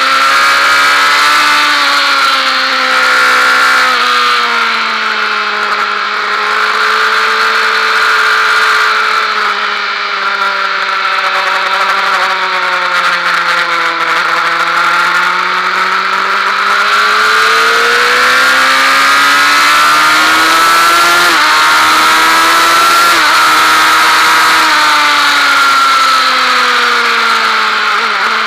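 Honda Fireblade's inline-four engine running at track speed, heard onboard over wind noise. The engine note falls steadily as the bike slows for a corner, bottoming out about halfway through, then climbs again as it accelerates back up to speed.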